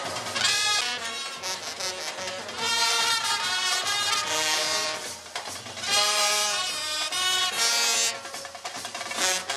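Marching brass band playing a melody: trumpets and a saxophone carry the tune over euphoniums.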